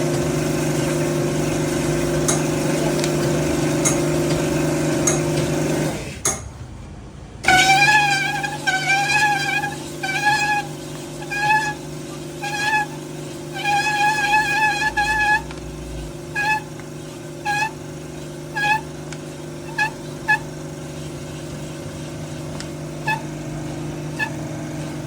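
A car engine running steadily with a low even hum, which drops out briefly about a quarter of the way in. After the break, a series of high, wavering toots sounds over it: a few long ones at first, then short ones about every half second.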